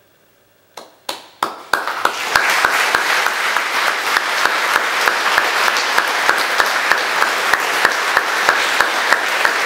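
Audience applause: a few single claps about a second in, then the whole room breaks into steady clapping.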